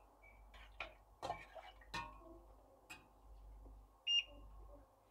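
Metal spatula knocking and scraping against a stainless steel pot as soup is stirred, a few separate clinks in the first three seconds. A short high beep about four seconds in is the loudest sound.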